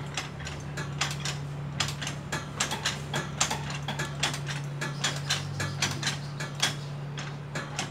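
Soldering iron working solder onto a rocker switch's terminals: irregular crackling clicks, several a second, over a steady low hum.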